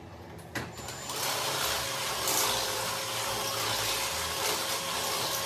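Power drill boring into the wall, starting about a second in and running steadily without a break: a constant motor tone over grinding noise.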